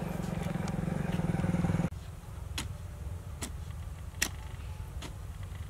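An engine runs steadily for about the first two seconds, then cuts off abruptly. After that a short-handled hand hoe chops into dry, hard soil in regular strokes, a sharp hit about every 0.8 seconds.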